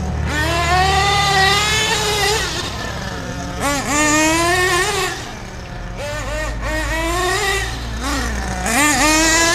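Small .28 nitro engine of a 1/8-scale radio-control car revving up and down as it is driven. Its high whine rises and falls over and over, with sharp drops and climbs about four seconds in and again near the end.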